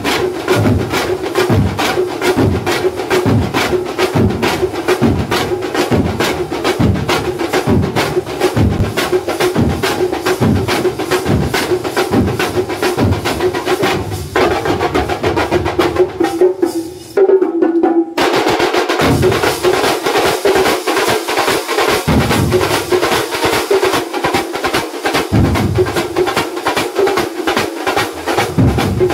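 Thambolam percussion ensemble playing: many large drums beaten with sticks in a fast, driving rhythm, with metal hand cymbals ringing above. The bass strokes thin out about halfway through and stop for a moment, then the full ensemble comes back in.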